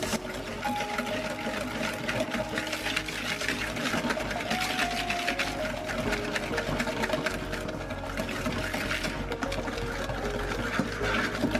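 Fast, steady rattling of a whisk or mixer beating a mixture in a bowl, a dense run of small clicks, with soft background music.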